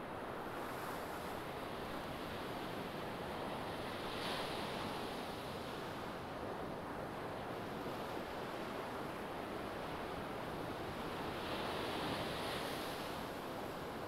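Small waves breaking and washing up a sandy beach: a steady surf hiss that swells twice, about four seconds in and again near the end.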